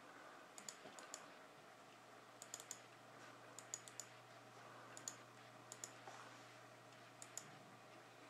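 Computer mouse button clicking, mostly in quick pairs of double-clicks opening folders in a file dialog, a group every second or so, over a faint steady low hum.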